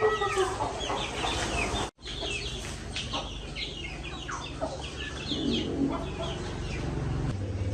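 Chickens clucking, with many short high chirps, over a low steady hum. The sound cuts out briefly about two seconds in.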